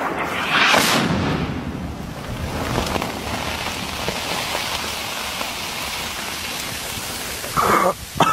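Tank shell exploding close by: a loud rushing blast about half a second in, then several seconds of steady noisy hiss as the blast dies away and debris comes down.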